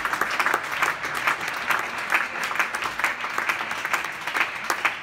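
Spectators applauding, a dense steady clapping that follows the end of a badminton rally.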